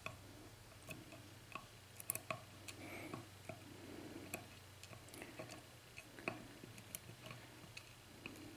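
Faint, irregular small clicks and taps of small metal lock pins and parts being handled, from a disassembled pin-tumbler lock cylinder.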